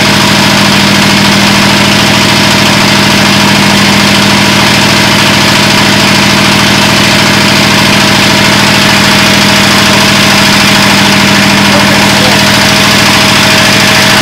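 A new water-cooled single-cylinder diesel walk-behind tractor engine idling loud and steady, just after its first start.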